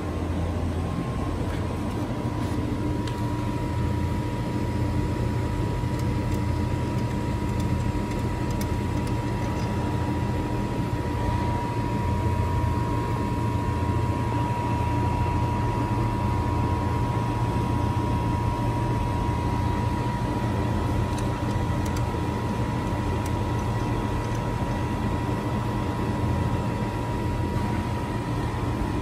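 Refrigeration unit of a 1000 W handheld fiber laser welder's built-in water chiller running, compressor and condenser fan together: a steady low hum with a thin, steady high tone above it.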